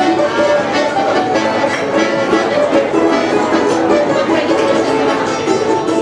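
Balalaika and button accordion (bayan) playing a tune together: held accordion notes under the quick plucking of the balalaika.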